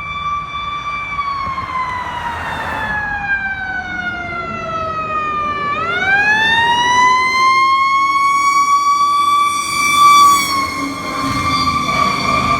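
Fire engine siren wailing. Its pitch holds, slides down slowly for about four seconds, then climbs back up quickly and holds steady.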